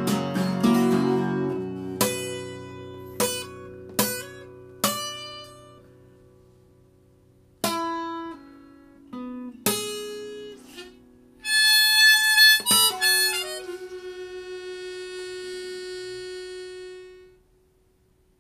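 Acoustic guitar strummed in single chords that ring and fade, then a short bright harmonica phrase from a neck-rack harmonica about two-thirds in, ending on a held note that fades out about a second before the end: the closing bars of a folk-style song.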